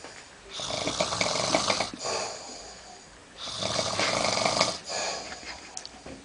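A man snoring in his sleep: two long snores about three seconds apart, the second followed by a shorter one.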